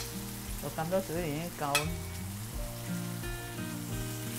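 Sliced chayote sizzling in a stainless-steel wok with a little water, stirred with a metal spatula, with two sharp clicks of the spatula against the wok, one at the start and one just under two seconds in.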